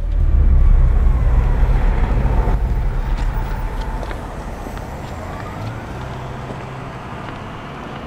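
A motor vehicle's low rumble, loudest in the first few seconds, then fading into a steady, quieter traffic noise.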